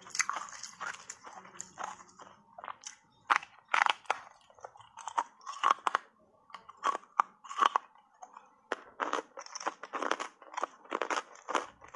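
Hard ice coated in matcha powder being bitten and chewed: a run of sharp, irregular cracks and crunches, several a second at times, with short lulls between bites.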